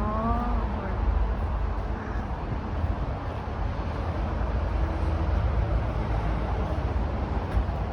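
Steady low rumble of a vehicle driving along.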